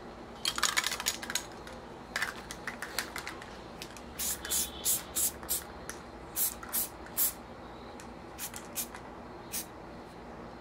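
Aerosol spray paint can being shaken, its mixing ball rattling in two quick runs. Then comes a string of short, sharp bursts, about three a second, and one more near the end.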